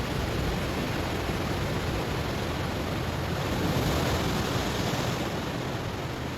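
Ocean waves breaking on a stony shore: a steady rush of surf that swells to a peak about four seconds in, then eases off.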